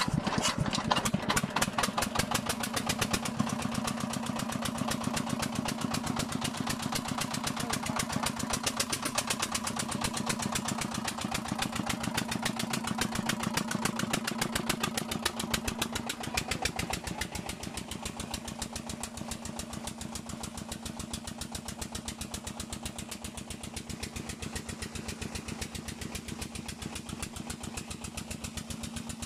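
A 24 hp pump engine driving an 8-inch water pump runs steadily with a rapid, even firing beat, having just been hand-cranked into life. It gets a little quieter after about sixteen seconds.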